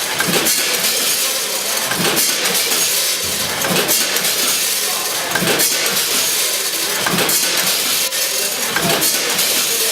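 Olive packaging machine running: a steady mechanical hiss with many small clicks, a heavier knock about every one and a half to two seconds, and light clinking.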